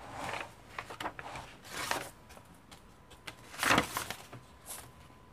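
Paper pages of a handmade journal being turned and brushed by hand: several soft rustling swishes, the loudest a little under four seconds in.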